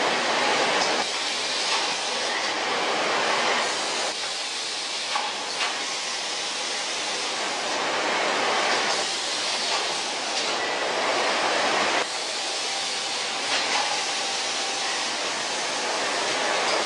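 Machinery of a plastic-bottle production and sterilizing line running, with bottles on conveyors and a tray-loading gantry at work: a loud, steady noise that swells and eases every few seconds, with a few faint ticks.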